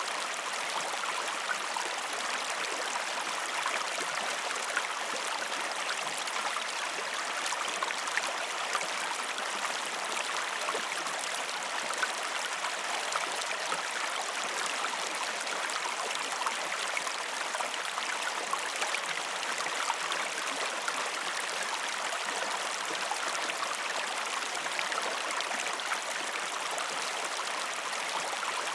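River water flowing steadily over stones, a constant rushing and babbling with small splashes and trickles scattered throughout.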